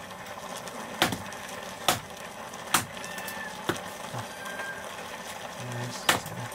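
Heavy knife chopping on a wooden block: five sharp chops, about one a second, with a pause of some two seconds before the last.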